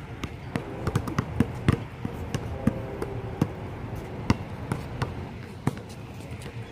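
A quick, irregular run of sharp knocks and clacks, several a second, like hard objects or balls striking and bouncing, over a low background hubbub.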